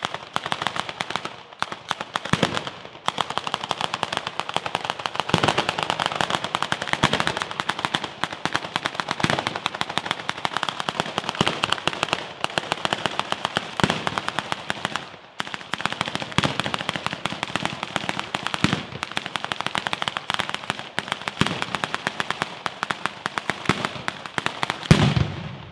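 Italian firework batteria: chains of firecrackers going off in a dense, rapid, unbroken barrage of sharp bangs like machine-gun fire. It starts suddenly, and a heavier, deeper blast comes just before it cuts off.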